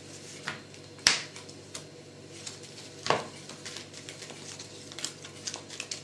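Trading cards being put down and moved on a playmat: a few sharp clicks, the loudest about a second in and another about three seconds in, then light quick ticks near the end.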